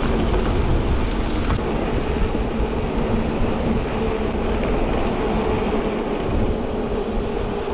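Bicycle coasting fast down a tarmac road descent: wind buffeting the microphone and a steady rumble of tyres on the road, with a steady hum that rises slightly in pitch near the end.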